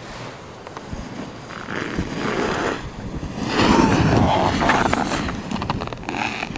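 Snowboard edges carving and scraping across hard, icy snow as a racer passes close by. The hiss swells, is loudest about halfway through, then fades as the rider moves away.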